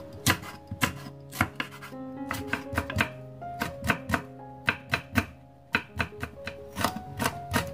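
Chef's knife mincing green and red chili peppers on a wooden cutting board: quick, uneven knife strikes, several a second, over background guitar music.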